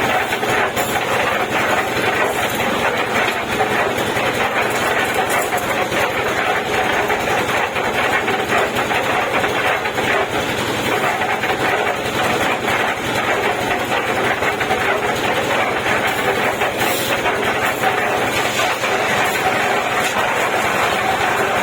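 Concrete mixer running steadily: continuous engine noise with a dense, rapid rattle.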